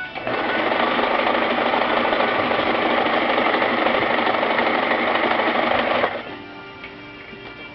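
Brother XL2030 electric sewing machine running steadily at speed, stitching for about six seconds before stopping abruptly, with background music underneath.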